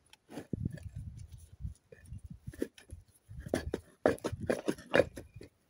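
A sheep snuffling close to the microphone, irritated by wood smoke in its nose.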